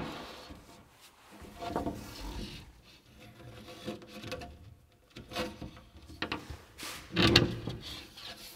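A wood sheet panel being shifted and rubbed into place against a cabinet base, scraping and knocking in uneven bursts, loudest a little past seven seconds in.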